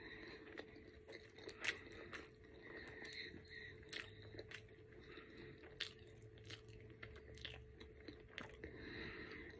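Close-up chewing and mouth sounds of a person eating an egg, cheese and chorizo bagel sandwich, with scattered soft crunches and clicks, a sharper one about two seconds in. A faint steady hum runs underneath.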